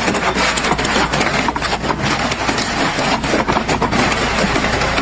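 An engine running steadily, with frequent knocks and rattles over it.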